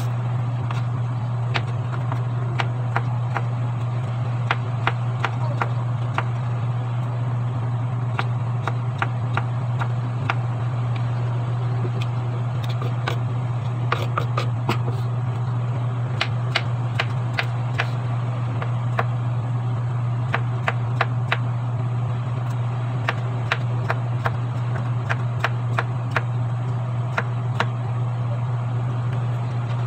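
Kitchen knife chopping bottle gourd on a wooden cutting board: many short, irregular knocks of the blade against the board. Under them runs a steady low hum, the loudest sound throughout.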